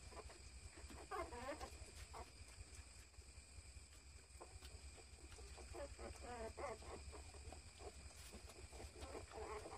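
Faint, short squeaky animal cries in three brief bouts, over a steady low hum.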